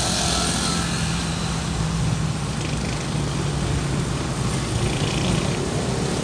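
Steady running noise of a moving car heard from inside the cabin: a low engine hum under even road and tyre noise.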